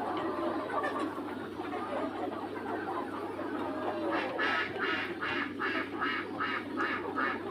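A farmyard bird gives a quick run of about eight harsh, evenly spaced calls, roughly three a second, starting a little past the middle, over the low, steady murmur of the poultry flock.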